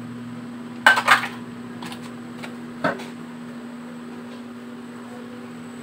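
Small hard plastic cosmetic containers clattering as they are handled and set down or tossed: a quick cluster of clacks about a second in, then single knocks at about two and three seconds. A steady low hum runs underneath.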